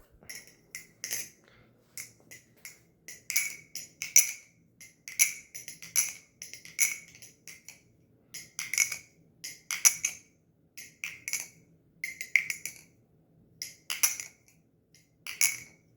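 LDY Sirius V4.5 balisong (butterfly knife) being flipped: its handles and blade clack together in quick clusters of sharp metallic clicks with a brief ring, every half second to a second, with a short pause a little past halfway.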